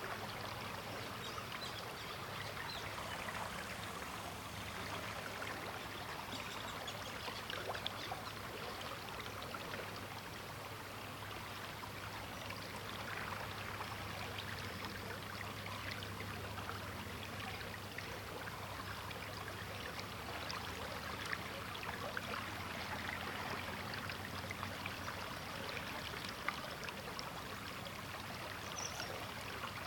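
River water flowing: a steady, even rush of moving water, flecked with many small splashes and trickles.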